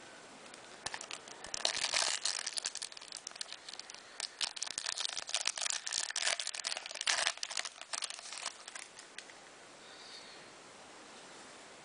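Foil wrapper of a trading card pack being crumpled in the hands, crinkling in a short spell near the start and a longer one through the middle, then dying away.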